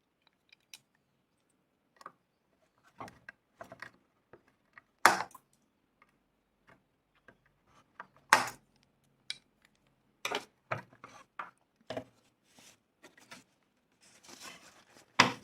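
Side cutters snipping the excess leads of newly soldered components on a TV power-supply board: a series of sharp snips, the loudest about five seconds in, about eight seconds in and near the end, among smaller clicks of handling.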